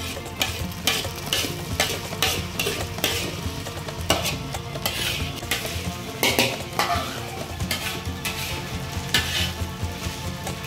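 Food stir-frying in a hot pan: a metal spatula scrapes and tosses about twice a second over a steady sizzle.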